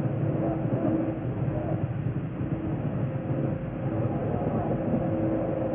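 A steady low rumbling noise with a faint steady hum running through it.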